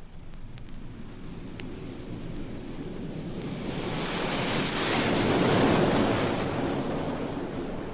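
A rushing noise swells up over a few seconds, peaks about six seconds in, then dies away.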